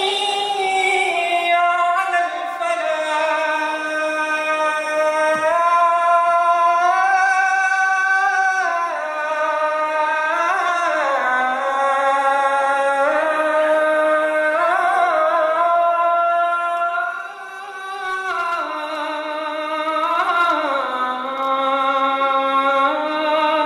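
Islamic call to prayer (azan) chanted by a single voice in long, drawn-out melismatic phrases, with a short break for breath a little after the middle.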